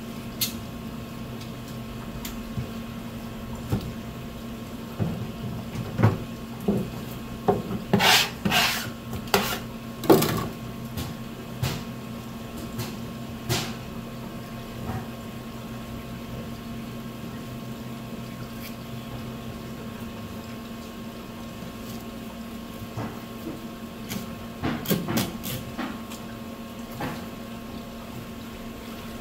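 Filleting a large olive flounder with a knife on a plastic cutting board: scattered knocks, scrapes and slaps of the knife and the fish on the board, louder in clusters around eight to ten seconds in and again near twenty-five seconds. A steady hum runs underneath.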